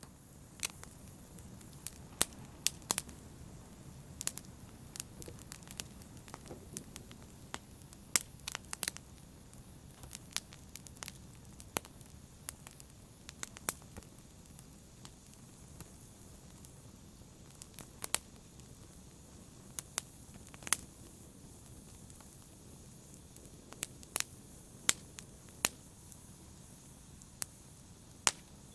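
Wood fire burning in a fireplace: a steady low rush of flames with irregular sharp crackles and pops, several louder than the rest.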